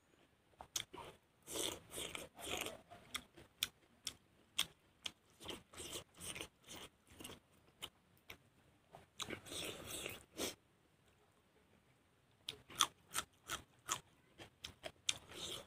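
Close-up chewing of a hand-eaten mouthful of rice and vegetables, with crisp crunches coming in irregular bursts and a couple of short pauses.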